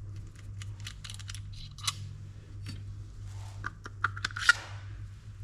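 Light clicks and taps of small metal parts of a baitcasting reel being unscrewed and handled during disassembly, with the loudest cluster of clicks near the end, over a steady low hum.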